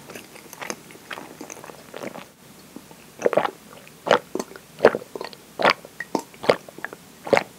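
Gulping swallows of a milky coffee drink from a glass: strong, evenly spaced gulps a little under a second apart, starting about three seconds in, with soft mouth clicks before them.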